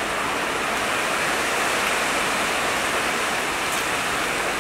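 Steady rushing noise of the stove burner under a large pot of steaming vegetable soup.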